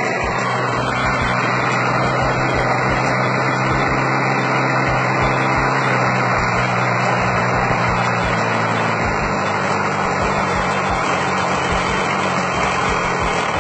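Magnum .46 two-stroke nitro glow engine of a model airplane running at a steady, high speed.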